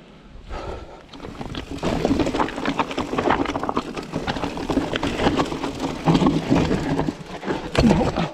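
Mountain bike clattering over rough, rocky ground: dense irregular knocks and rattles over a steady rush of noise, louder from about two seconds in.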